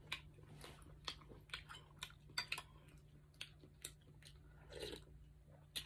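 A person chewing a handmade chicken meatball, a firm, crunchy kind, close to the microphone: soft, irregular wet clicks of the mouth. There is one longer, louder sound a little before the end.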